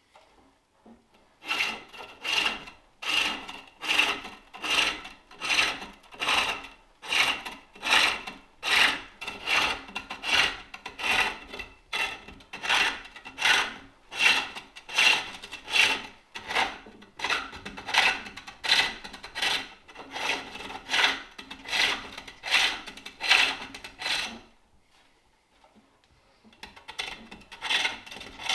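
Wooden bowl turning on a spring pole lathe: a turning tool shaves the spinning wood in rhythmic cuts, a little over one a second, each cut on the treadle's downstroke. The cutting stops briefly near the end, then starts again.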